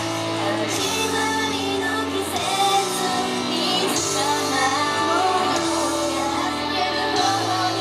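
Several young women singing a pop idol song together into handheld microphones over loud pop music with a steady bass line.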